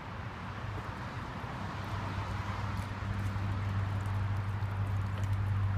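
Steady low machine hum, growing louder, over light water noise as a golden retriever paddles through a pool and reaches the ladder.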